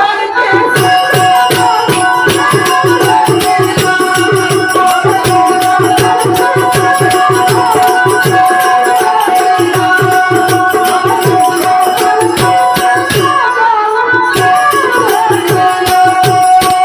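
Indian music: a fast hand-drum rhythm like tabla, under a steady held drone note and a melody line that bends up and down.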